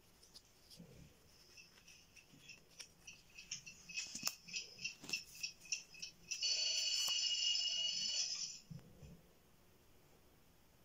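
Alarm clock bell ringing: short rings at about four or five a second that run together into one continuous ring for about two seconds, then stop sharply.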